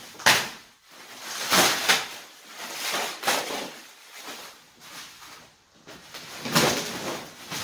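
Plastic packaging and bubble wrap crinkling and rustling in several bursts as it is pulled off a new barbell.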